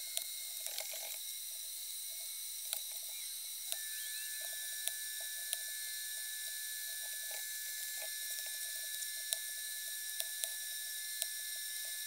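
Light clicks and taps of thin laser-cut plywood parts being handled and pressed together, over a steady high-pitched electrical whine. A further whining tone joins about four seconds in.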